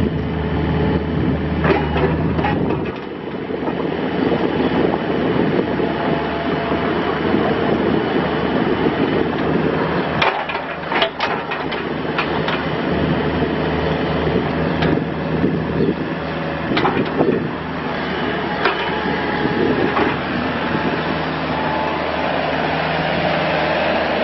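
A 2012 John Deere 50D mini excavator's diesel engine running under hydraulic load while the boom, arm and bucket move and the upper house swings. Scattered sharp metallic clanks and knocks come from the working front end, several close together about ten seconds in.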